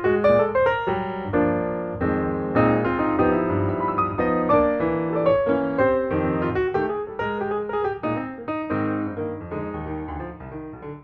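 Background piano music: a melody of many quick notes over chords, growing a little quieter towards the end.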